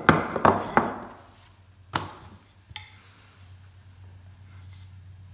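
Wooden rolling pin knocking against a hard worktop while pastry is rolled out: three quick knocks at the start, a single knock about two seconds in, then only a faint low hum.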